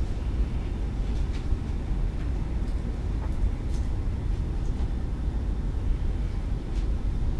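Steady low rumble of room noise, with a few faint clicks.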